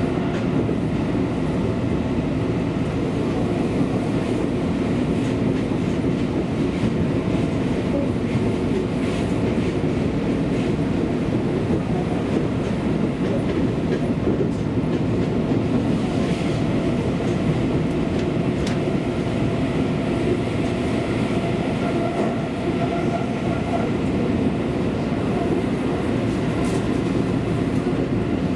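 Seibu Railway commuter train running steadily between stations, heard from inside the passenger car: a continuous rumble of wheels on the track with a few faint rail-joint clicks.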